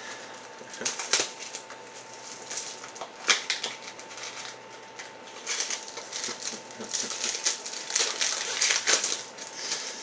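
Crinkling and rustling of a trading-card pack wrapper being torn open and the cards handled, in irregular bursts that are busiest in the second half.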